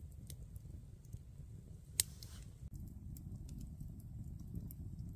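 Wood campfire crackling, with scattered small pops over a low steady rumble of burning and one sharp loud pop about two seconds in.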